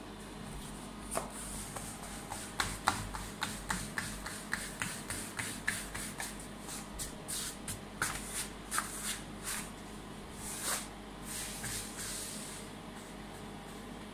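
Hands patting and pressing pizza dough bases on a flour-dusted granite counter: a run of quick soft pats, about two or three a second, with a brushing hiss of flour on stone near the end.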